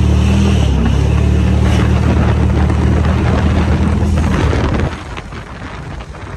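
Car engine running loud at steady high revs while pulling under throttle. About five seconds in the throttle is lifted and the engine drone falls away, leaving quieter road and wind noise.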